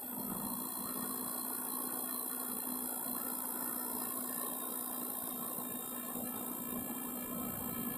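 Small electric motor of a model RC ferry's ramp winch whirring steadily with a constant hum, as the stern ramp is lowered.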